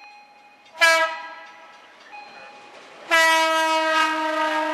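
Horn of a Sperry Rail Service rail-flaw detection car (SRS Doodlebug 119) as it passes: a short blast about a second in, then a long blast from about three seconds in.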